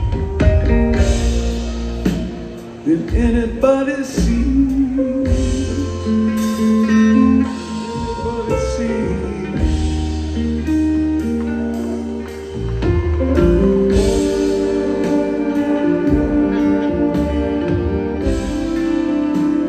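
Live rock band with a horn section playing a slow instrumental passage: held horn and guitar notes over bass, keyboards and drums.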